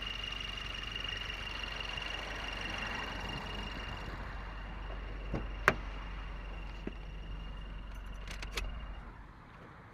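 Subaru WRX's turbocharged FA20DIT engine running with a steady high-pitched squeal, an unexplained squeak that the owner is trying to trace. A few sharp clicks and knocks come over it, and the squeal and engine hum stop near the end.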